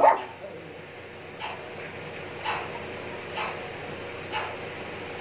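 A dog barking over and over, short barks about once a second, with a louder one right at the start.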